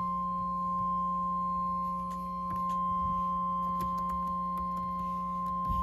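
NOAA Weather Radio warning alarm tone: one steady, unbroken tone near 1 kHz, the attention signal that comes before a severe thunderstorm warning is read.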